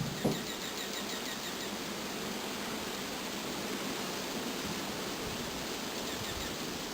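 Steady rushing noise of blizzard wind, with a single thump just after the start.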